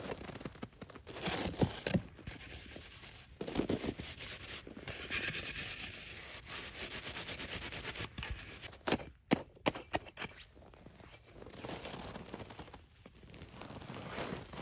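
Crunching and scraping of snow and ice being worked by hand, uneven, with a few sharp knocks about nine seconds in.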